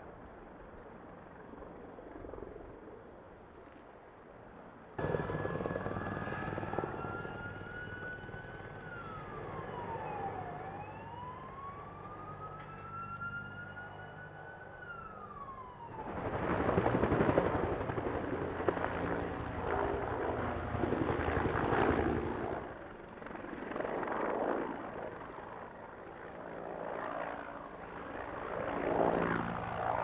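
Firefighting helicopters' turbine and rotor noise. A few seconds in, a siren joins, wailing in slow rising and falling sweeps. From about halfway, louder helicopter noise swells and fades as the machines pass close.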